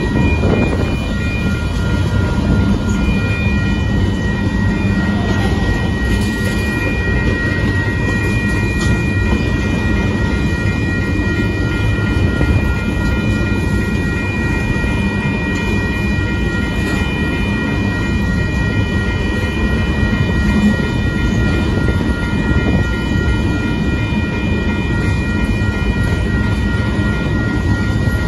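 Covered hopper cars of a freight grain train rolling past over the rails: a steady rumble of wheels on track, with steady high ringing tones above it.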